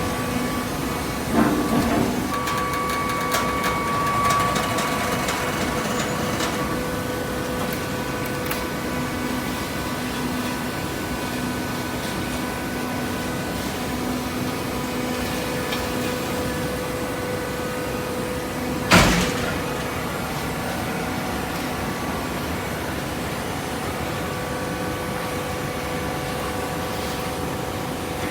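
Horizontal hydraulic cardboard baler running, a steady mechanical hum with a few knocks in the first couple of seconds and one loud bang a little past the middle.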